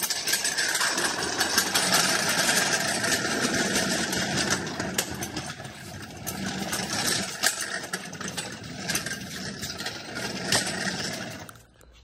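A steel engine hoist rolling on its casters across a concrete shop floor: a steady rolling noise with scattered small clicks, louder in the first half, stopping abruptly near the end.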